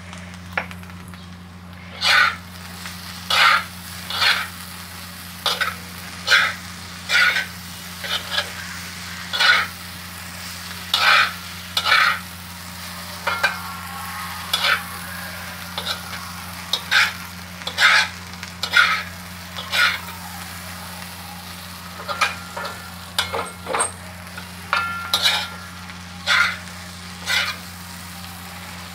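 Metal spoon scraping and stirring diced boiled potatoes in oil on an iron tava, in short strokes about once a second, over faint sizzling of the frying.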